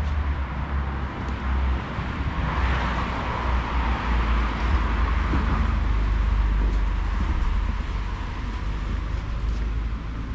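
Road traffic over a steady low rumble: a vehicle passes, its noise swelling about two and a half seconds in and fading away by about seven seconds.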